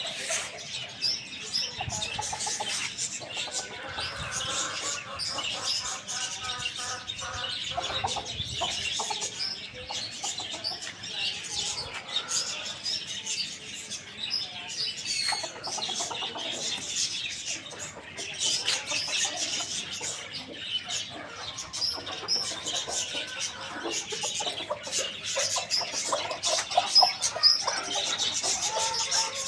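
Chickens clucking over many short high-pitched chirps that run on throughout.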